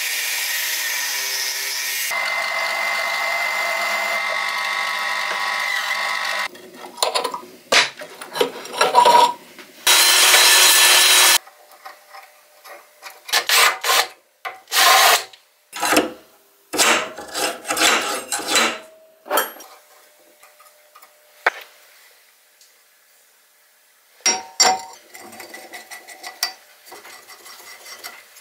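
Metalworking tool sounds: a power tool runs steadily for about six seconds, then a series of short grinding or filing strokes, with one loud burst of a second or so about ten seconds in. Near the end come light clicks and knocks of metal parts.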